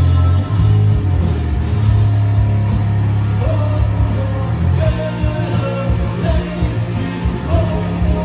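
A live rock band playing together: drum kit, electric guitars and bass.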